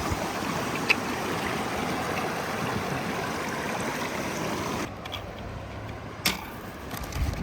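Steady rushing of running water, an even hiss that stops abruptly about five seconds in. A single sharp click follows a little over a second later.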